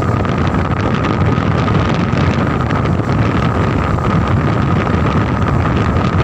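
Strong gusty wind at the shore buffeting the microphone: a loud, steady rumble with a hiss above it.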